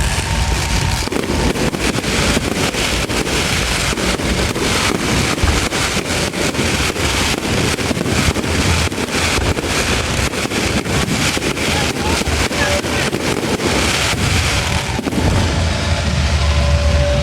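A long string of firecrackers going off in a rapid, unbroken crackle of many small bangs a second for most of the stretch, then stopping. Procession music plays faintly underneath.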